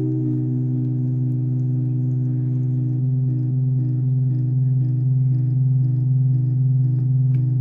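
MFOS Weird Sound Generator, a breadboarded DIY synth of CD40106 square-wave oscillators, holding a steady low buzzing drone. About three seconds in, a higher tone starts pulsing on and off about twice a second on top of it.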